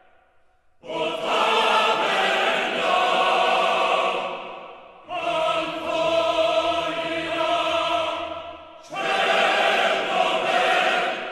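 Background music of long sustained choir-like chords, in three swells that each start suddenly and fade out.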